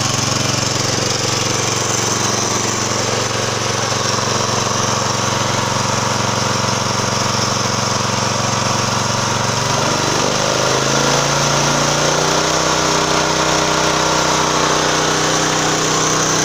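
Small single-cylinder multi-purpose petrol engine of about 9.6 hp, belt-driving car alternators as a welding generator, running steadily at low speed; about ten seconds in it is throttled up, its pitch shifting and settling at a higher, slightly louder steady speed ready for welding.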